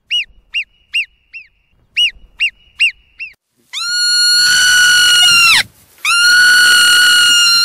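Ground squirrel alarm calls: a run of eight short chirps, each rising then falling in pitch, followed by two long whistling calls of about two seconds each, which are the loudest part.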